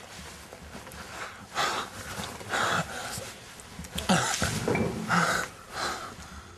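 Heavy breathing and gasps of two people having sex, quick breathy bursts coming about one or two a second, with a short voiced moan about four seconds in.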